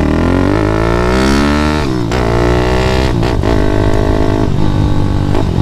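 Grom-clone mini motorcycle's engine accelerating, its pitch rising steadily for about two seconds. Near two seconds it drops sharply at a gear change, then rises and dips several more times as the throttle is worked.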